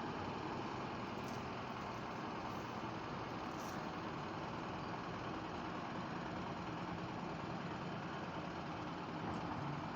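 Heavy machinery running steadily: a continuous mechanical drone with a low engine-like hum.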